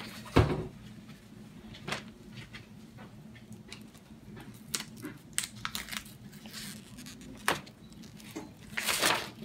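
Sheets of paper being handled on a table: scattered light taps and rustles, a sharp thump about half a second in, and a longer rustle near the end as a printed sheet is lifted.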